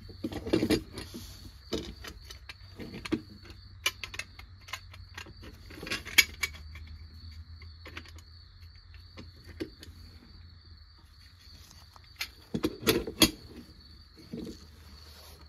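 Die-cast metal toy tractor parts being handled and fitted together: scattered clicks, taps and knocks of metal on metal and on the bench, the loudest cluster near the end. A faint steady high whine runs underneath.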